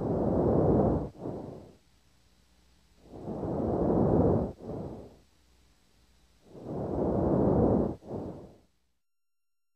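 Normal vesicular breath sounds heard through a stethoscope: three breaths, each a longer, louder soft rush on inspiration followed by a brief, fainter expiration.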